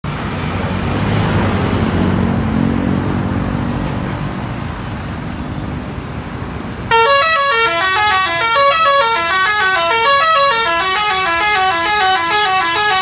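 A vehicle engine running for about seven seconds, then a multi-tone musical 'telolet' bus horn comes in suddenly and louder, playing a fast run of stepped notes that rise and fall like a tune.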